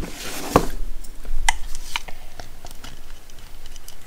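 Handling noise as a Milwaukee M18 random orbit sander is picked up off a kitchen scale and moved about. There is a brief rustle, a solid knock about half a second in, then a few sharper clicks and light taps.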